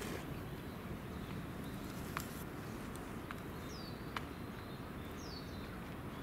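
Steady low background noise with two sharp taps, about two seconds in and about four seconds in, and two short high falling bird chirps, in the middle and toward the end.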